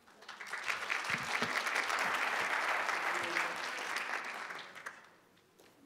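Audience applauding. The clapping swells over the first second, holds, then dies away about five seconds in.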